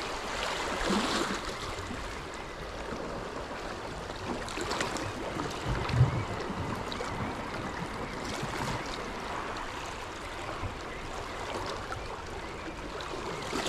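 Sea water washing gently against the shore rocks, a steady wash with a short low thump about six seconds in.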